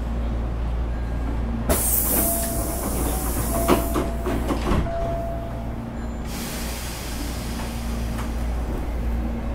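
Running sound inside a Hankyu 8300 series electric train car (late Toyo GTO-inverter type), accelerating away from a station: a steady low rumble with a faint motor tone. Two spells of loud hiss come in, the first about two seconds in and the second about six seconds in, and a cluster of sharp clicks and knocks falls between about two and five seconds.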